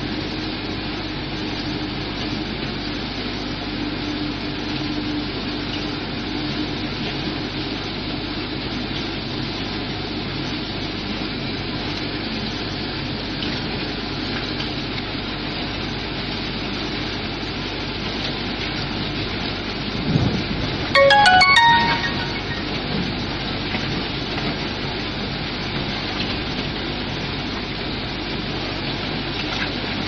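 Mobile twin-shaft concrete mixer pump running, a steady even machine noise. About two-thirds through comes a brief loud thump and a quick run of high notes.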